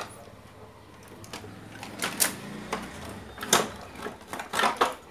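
Irregular plastic clicks and knocks as the circuit board and cassette mechanism of an old National radio cassette recorder are worked loose and lifted in its plastic cabinet. A quiet start is followed by a busier clatter over the second half.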